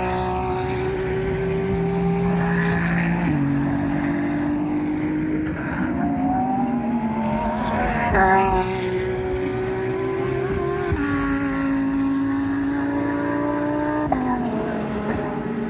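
GT3 race cars running past at speed, several engines overlapping. Their pitch jumps up and drops sharply several times as gears change and cars go by.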